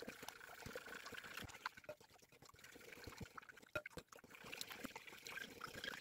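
Metal spoon stirring salt and baking soda into warm water in a glass bowl: faint swishing of the liquid with many small clicks and scrapes of the spoon against the glass.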